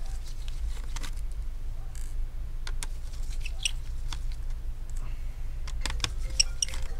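Scattered light metallic clicks and taps of a screwdriver working the hinge screws of a laptop, over a steady low hum.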